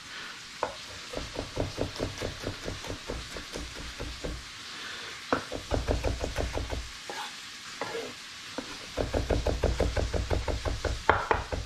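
Chef's knife mincing smashed garlic on a wooden cutting board: quick chops, about five or six a second, in three runs with two short pauses.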